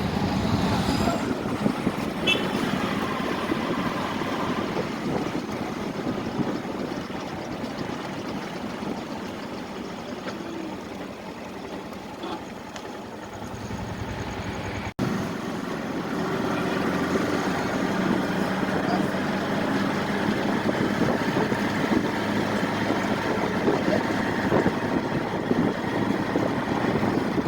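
Motor traffic, with vehicle engines running and idling, and voices in the background. The sound cuts abruptly about halfway through and carries on much the same after.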